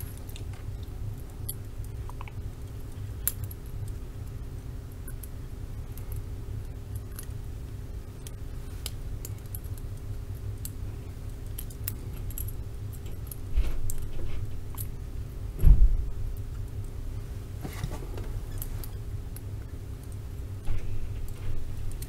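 Small metallic clicks and scrapes of an improvised pick working inside a Peerless handcuff's lock, with the cuff clinking on the wrist. There are two dull knocks about two-thirds of the way through, over a steady low hum.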